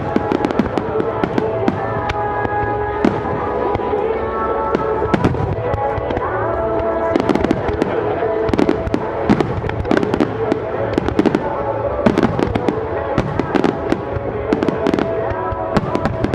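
Aerial fireworks going off in a dense barrage of sharp bangs and crackles, with music playing over them.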